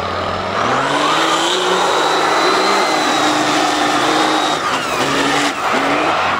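Turbo-diesel engine of a lifted mud race truck revving hard at full throttle. The revs climb about half a second in and hold high under a steady high whine. They dip briefly about five seconds in and pick up again.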